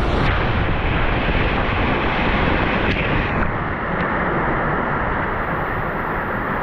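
Steady loud rush of water and wind buffeting the microphone during a ride down a water slide.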